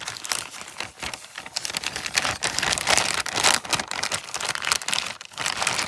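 Thin clear plastic bag crinkling and rustling in irregular crackles as a chrome-plated plastic model-kit sprue is pulled out of it through a cut that is too short.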